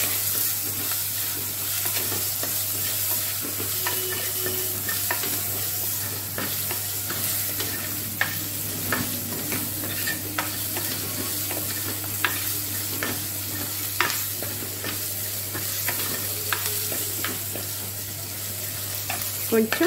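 Sambar onions (small shallots) sizzling in hot oil in a clay pot as they are stirred with a steel ladle, with frequent short clicks and scrapes of the ladle against the pot. The onions are being softened for a sambar.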